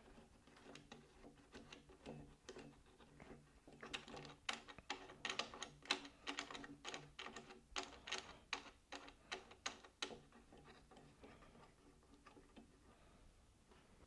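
Light, irregular clicks and taps of hands working the antenna's tuner box and tightening its bracket fasteners on the mast, thickest in the middle stretch, over a faint low hum.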